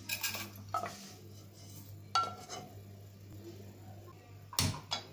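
A kitchen utensil scraping and clinking against a pan as roasted wheat vermicelli is moved out of it: a few short clinks, one ringing briefly, and the loudest knock near the end.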